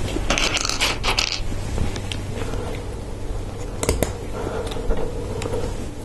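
Loose LEGO Technic plastic parts clattering against each other for about a second, then a couple of sharp clicks about four seconds in as a part is pressed into place.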